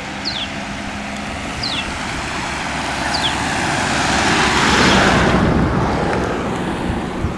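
A road vehicle passing on the nearby road, its engine and tyre noise swelling to its loudest about five seconds in and then fading. Short, falling chirps repeat about every one and a half seconds during the first half.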